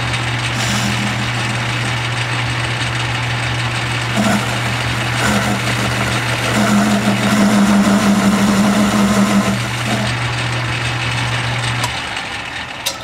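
Metal lathe running under a light finishing cut on a metal piston valve, a steady motor hum with a louder humming tone that comes and goes during the cut. The lathe shuts off about a second before the end and the sound dies away.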